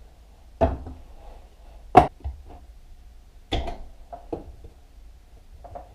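Four sharp knocks and clanks of metal motorcycle engine parts being worked loose and handled during a teardown, the loudest about two seconds in, followed by a few lighter ticks near the end.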